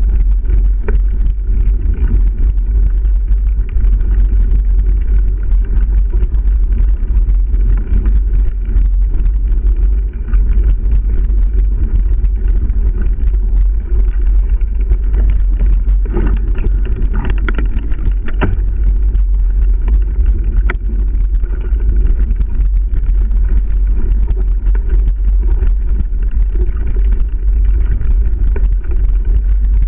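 Wind buffeting a GoPro microphone in a steady low rumble, over the rattle and tyre noise of a mountain bike riding fast on a dirt singletrack, with scattered knocks and clicks from bumps in the trail.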